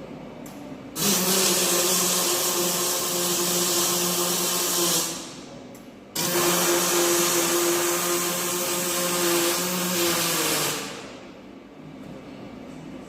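Electric angle grinder run twice on steel, each run about four seconds with a steady hum under a loud hiss, winding down after each release of the trigger.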